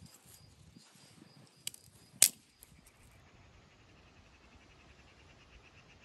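A single sharp click or knock a little after two seconds in, then from about three seconds in a cricket chirping in quick, even pulses.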